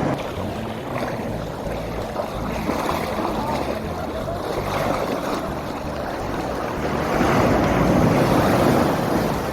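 Surf washing onto a sandy beach, with wind buffeting the microphone; the wash swells louder about seven seconds in.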